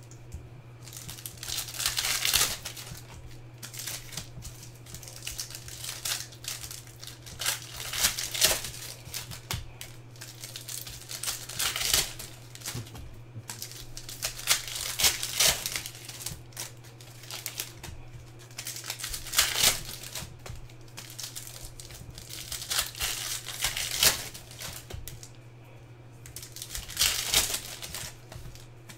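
Foil wrappers of basketball card packs being torn open and crinkled by hand, in repeated bursts every few seconds.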